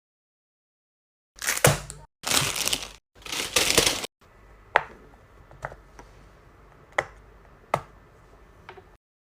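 A fidget toy being squeezed and handled: three loud crunching, crackling bursts, then five single sharp pops spaced about a second apart.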